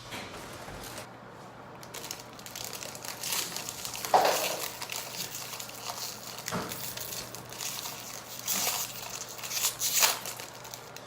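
Packaging crinkling as it is handled, with a few louder crackles scattered through.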